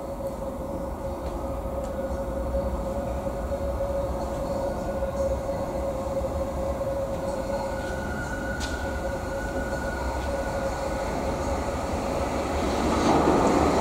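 Berlin U-Bahn IK-type small-profile train approaching through the tunnel towards an underground platform, its rumble growing steadily louder and swelling sharply near the end as it draws close. A steady whine holds throughout.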